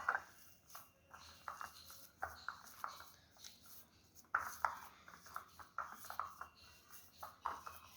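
Oiled hands kneading a stiff dough of grated boiled potato and amaranth (rajgira) flour: soft, irregular squishes and pats, two or three a second.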